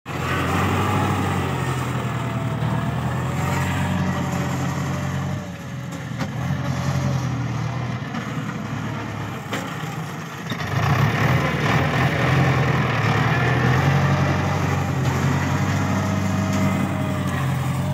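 New Holland TS90 tractor's diesel engine running steadily as it drags a three-disc plough across sandy ground. It is quieter for a few seconds from about a third of the way in, then louder again from just past the middle.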